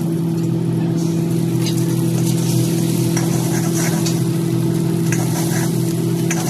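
Egg and chopped vegetables sizzling in a hot wok, with a steel ladle scraping and tapping the wok now and then as it stirs. A steady low hum runs underneath.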